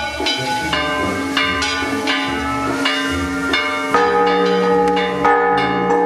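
Church bells ringing, a new stroke roughly every three-quarters of a second, the notes ringing on and overlapping one another.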